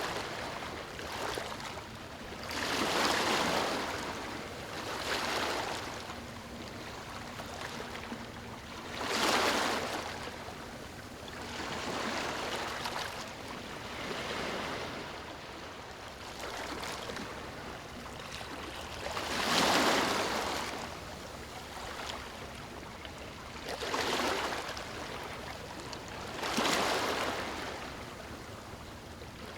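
Small waves lapping on a beach, each wash swelling and fading every few seconds over a steady background hiss.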